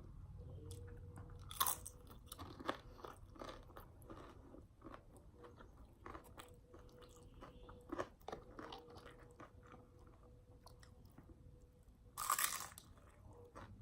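Close-miked eating: crisp crunching and chewing of food in small bites, with a louder crunch about twelve seconds in.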